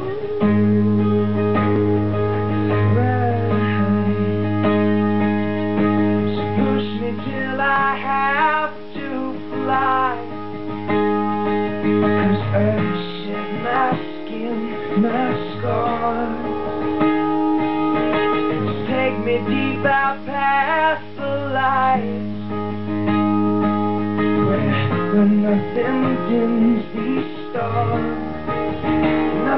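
Acoustic guitar strummed steadily, with a man singing over it: solo acoustic pop song played live.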